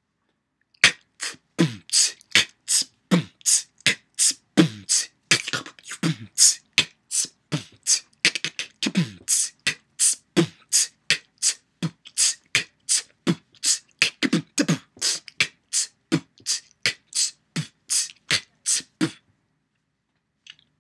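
Solo beatboxing: a person making a steady drum-like beat with the mouth, about three strokes a second. Deep kick sounds that drop in pitch alternate with sharp, hissy high strokes, and the beat stops shortly before the end.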